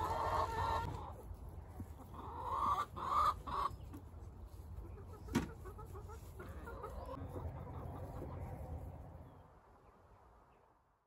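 Hens clucking, with a single sharp knock about five seconds in. The sound fades out near the end.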